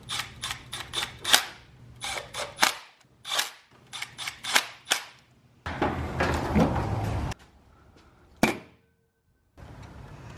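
A rapid, irregular series of sharp clicks and clacks, like small hard parts or tools being handled, followed about six seconds in by a short stretch of rushing noise and one last click.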